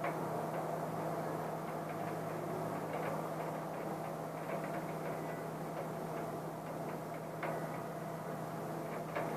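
Steady rain, with scattered drops ticking against the window and its ledge, and a few sharper ticks near the end, over a steady low hum.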